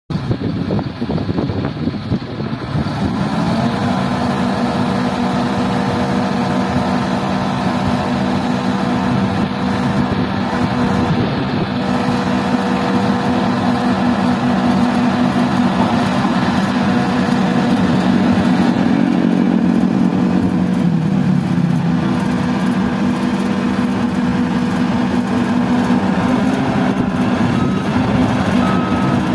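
Hitachi crawler excavator's diesel engine running steadily at working speed while its hydraulic arm lifts steel pipes. The engine note steadies about three seconds in and dips briefly in pitch about twenty seconds in.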